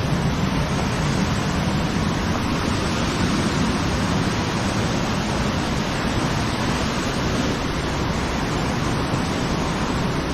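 Steady rush of a woodland waterfall and its stream, an even, unbroken wash of water noise.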